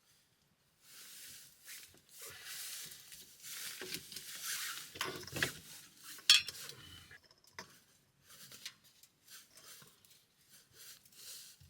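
Dishes and cooking utensils handled by hand: rustling and scraping over the first few seconds, then scattered light clicks, with one sharp metallic clink about six seconds in.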